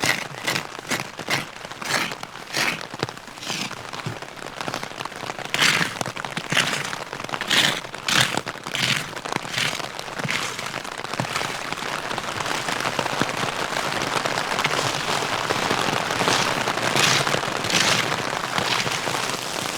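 Steady rain hissing, growing louder and more even in the second half, with a run of crunching footsteps at first, about two a second, then spaced further apart.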